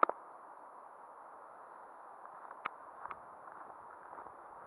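Steady muffled hiss from an action camera's microphone with a faint constant high whine, broken by a few sharp clicks: a loud one right at the start and two fainter ones a little past halfway.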